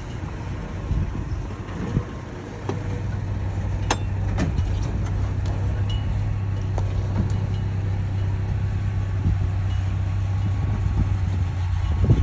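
Vintage flatfender Jeep engine running steadily, driving over a trail, with scattered knocks and rattles and one sharp knock about four seconds in.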